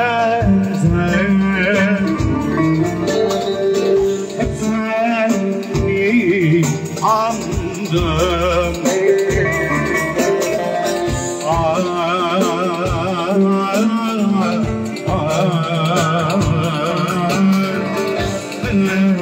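A folk-style song: a solo voice sings long ornamented phrases with heavy vibrato over plucked string accompaniment and a steady bass.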